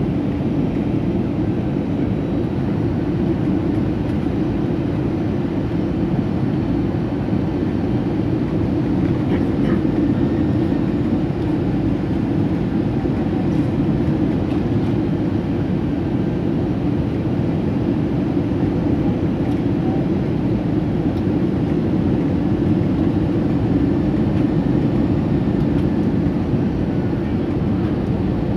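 Steady low rumble inside an Airbus A320's cabin in flight: jet engines and airflow running evenly, with no change in pitch or level.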